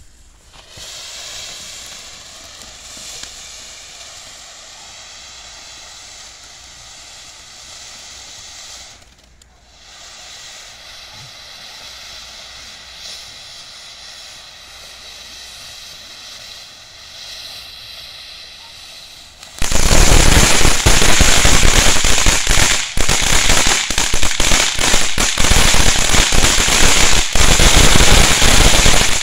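Short Stack firework fountain hissing steadily as it sprays sparks, with a brief dip about nine seconds in. About twenty seconds in it turns suddenly much louder, into dense rapid crackling.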